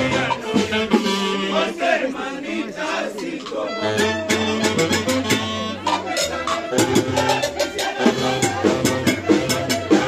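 A Latin dance band playing salsa-style music, with brass, a bass line and a shaker keeping an even beat.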